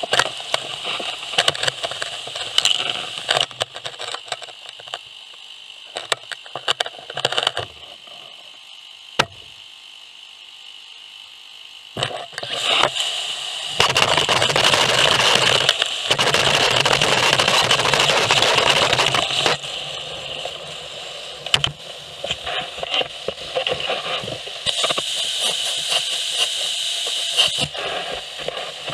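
Gutter vacuum sucking wet debris and moss out of a roof gutter through a carbon-fibre pole: irregular clicks and rattles of grit and debris striking the pipe, then two long stretches of loud, steady rushing air at the nozzle.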